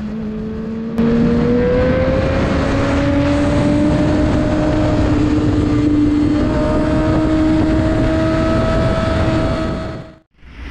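Kawasaki ZX-6R sport bike's inline-four engine pulling hard under acceleration, heard from the rider's helmet with wind noise. It gets suddenly louder about a second in, its pitch climbs slowly as the revs rise, and it fades out near the end.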